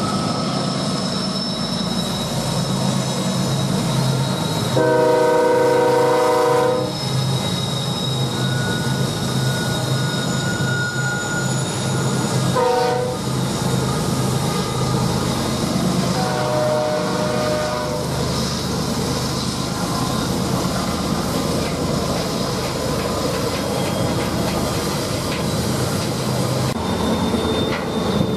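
Diesel locomotives of a BNSF freight train running past, with a steady low engine drone, wheel squeal and the clatter of cars. A multi-chime air horn sounds several blasts; the longest and loudest lasts about two seconds, about five seconds in, and shorter ones follow.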